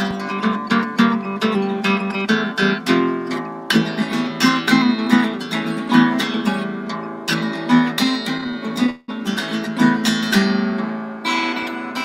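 Harp guitar played solo, a fingerpicked tune of plucked, ringing notes. The sound cuts out for an instant about nine seconds in.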